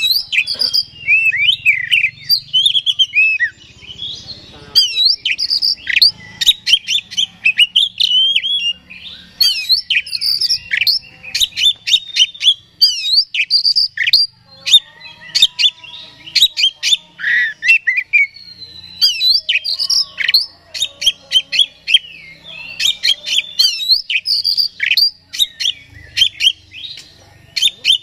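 Oriental magpie-robin singing a loud, nearly continuous song of quick varied chirps, trills and sweeping whistles, broken by a few brief pauses.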